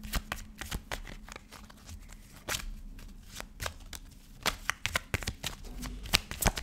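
A tarot deck being shuffled by hand: a run of irregular quick card slaps and clicks, coming faster near the end.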